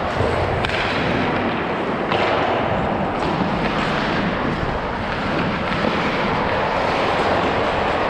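Hockey skate blades scraping and carving on the ice with rushing wind noise, and a few sharp clacks at irregular moments.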